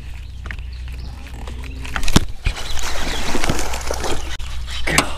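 Water splashing hard at the surface, starting sharply about two seconds in and lasting a couple of seconds, with a shorter splash near the end, over a steady low wind rumble.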